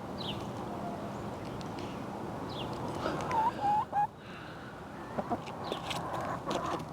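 Chickens clucking and calling: a few short pitched calls about three seconds in, with brief high chirps scattered through, over a steady background noise.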